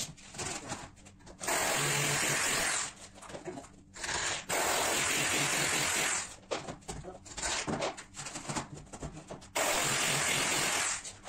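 Power drill running in three bursts of one to two seconds each, with scattered knocks and clatter between them, while the foot of a wooden stud wall frame is fastened.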